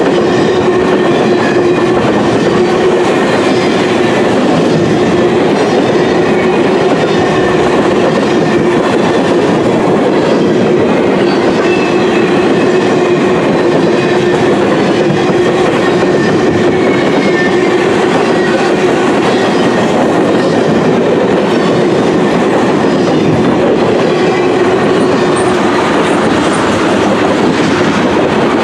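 Freight train's covered grain hoppers and tank cars rolling past close by: steel wheels running on the rails in a loud, steady rumble and clatter, with a steady hum underneath.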